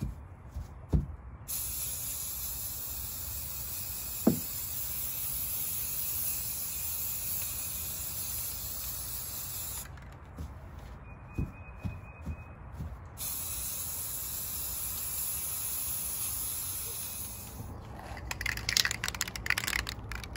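Aerosol spray-paint can spraying: a steady hiss for about eight seconds, a pause with a few soft knocks, then a second hiss of about four and a half seconds. Near the end, a crackling rustle.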